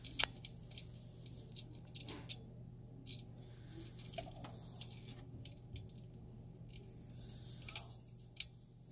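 Scattered light clicks, taps and rustles of electrical wire and small metal fittings being handled while wiring a whole house fan motor, over a faint steady low hum. The loudest click comes near the end.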